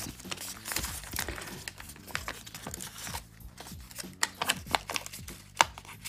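Origami paper being folded and creased by hand: rustling and crinkling with many small, sharp crackles at uneven intervals as the sheet is bent and pressed.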